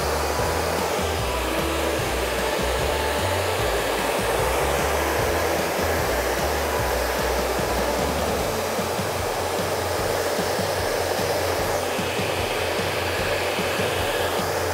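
Handheld hair dryer running steadily, blowing on wet hair, with a brighter hiss coming in near the end.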